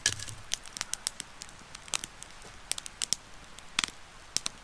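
Wood campfire crackling, with sharp irregular pops a few times a second. There is a louder knock right at the start as the fire is tended.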